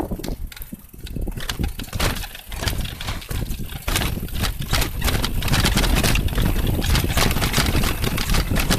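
Mountain bike rattling and clattering over a rough dirt trail, irregular knocks over a low rumble of tyres on the ground, a little quieter about a second in.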